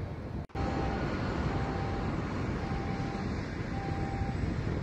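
Steady jet airliner engine noise, cutting in after a brief drop about half a second in. Over it a single tone beeps in short pulses about once a second.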